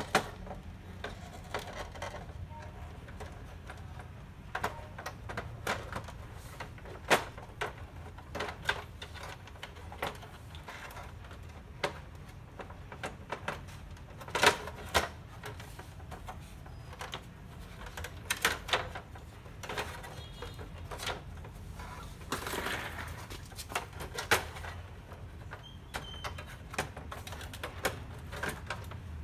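Irregular plastic clicks and knocks as the scanner lid and document-feeder tray of an HP Color LaserJet Pro MFP M277fw laser printer are lifted, pressed and handled, over a steady low hum.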